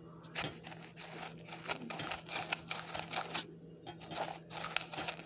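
Breadcrumbs crunching and rustling as a rolled bread-dough log is pressed and rolled in them by hand: a run of short gritty scrapes with a brief pause about three and a half seconds in.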